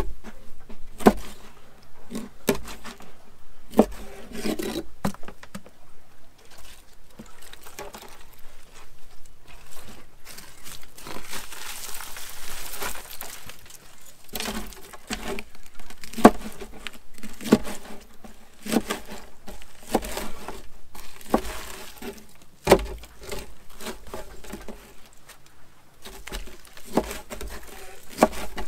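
Kitchen knife chopping octopus and fish bait on a wooden cutting board: irregular sharp knocks of the blade striking the board. Around the middle, a few seconds of wet rustling as the octopus is handled.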